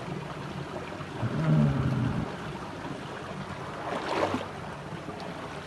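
Steady rushing of a small waterfall and its stream, with a short voice a little over a second in and a brief hiss around four seconds in.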